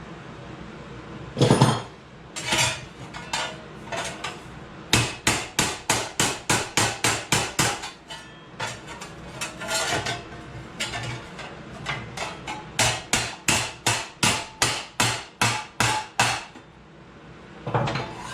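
Hammer blows on a piece of sheet metal being shaped: a few single strikes, then quick even runs of about three to four strikes a second.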